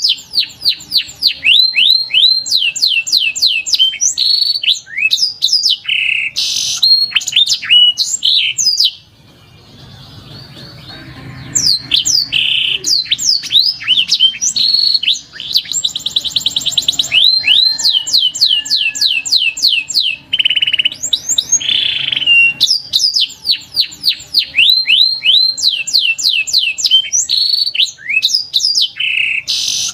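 Canary singing: rapid runs of repeated chirping notes and fast trills, breaking off for a couple of seconds about nine seconds in before starting again.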